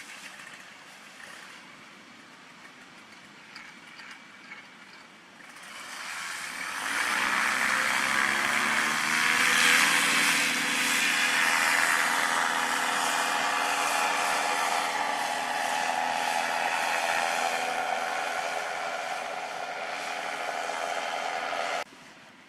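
Paramotor engine starting up about six seconds in, rising in pitch as it revs up, then running steadily at high throttle before stopping abruptly near the end.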